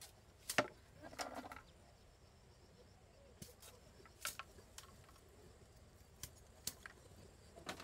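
Faint, irregular sharp clicks and snaps, about ten scattered over several seconds, with a short rougher cluster about a second in.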